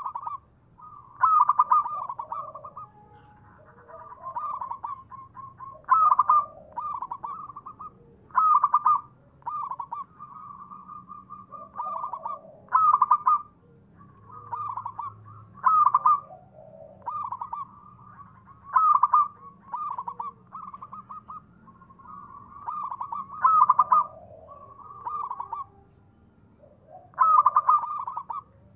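Zebra dove (perkutut) singing its cooing song: phrases of quick, stuttering coos, the loudest coming about every three to five seconds, with softer, drawn-out coos in between.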